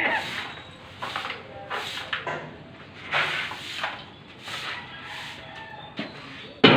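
A broom sweeping a concrete floor in short, repeated swishing strokes, about one or two a second, with a sharp knock near the end.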